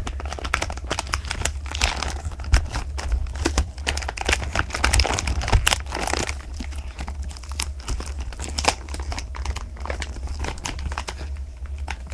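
Plastic toy packaging being crinkled and torn open by hand: irregular crackling and rustling of the blister and cardboard as the figure is worked free.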